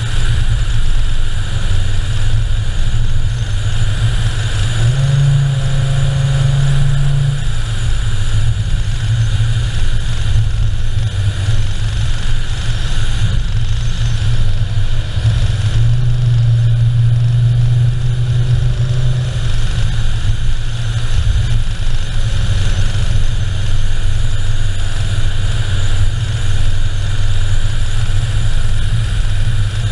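A car driving at steady road speed: a continuous engine hum that steps up in pitch and holds twice, over constant tyre and wind noise picked up by a camera mounted low on the outside of the car.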